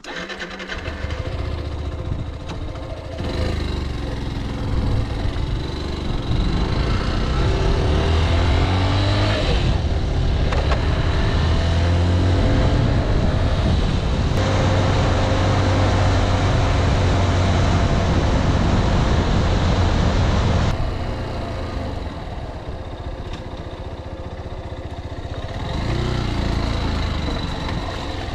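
Yamaha YS125's single-cylinder four-stroke engine running while the motorcycle is ridden. Its note rises and falls with throttle and gear changes. It is loudest through the middle stretch and eases off about two-thirds of the way through.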